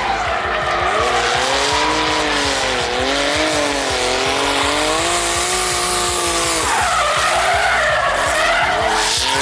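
Drift car's engine revving hard and wavering up and down in pitch while its rear tyres spin and squeal through a smoky slide, the revs falling sharply about two-thirds of the way through, then climbing again.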